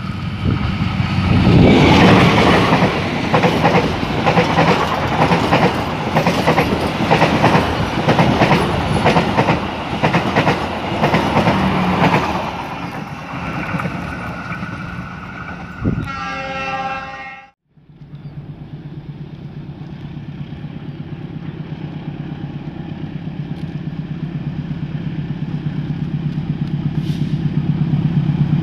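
Diesel-hauled passenger train passing close by, its wheels clicking rapidly over the rail joints, then fading away. After a break, another diesel locomotive approaches, its low engine hum growing steadily louder.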